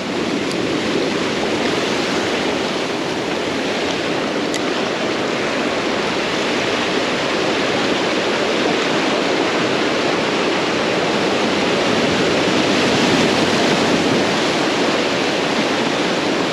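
Ocean surf washing against the shore: a loud, steady rushing noise that swells slightly near the end.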